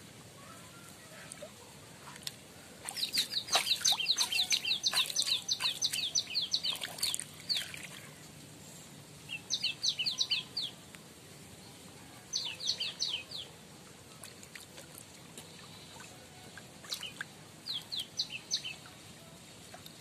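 A bird calling in bursts of quick, high, falling notes: one long run of about four seconds, then three shorter bursts.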